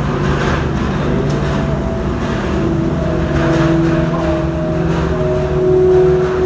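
Slow music with long held notes that move to a new pitch every second or two, over a steady low rumble.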